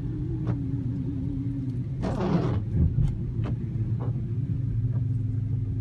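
Steady low rumble of a car's engine and tyres on a wet road, heard from inside the cabin, with one swish about two seconds in and a few sharp ticks scattered through.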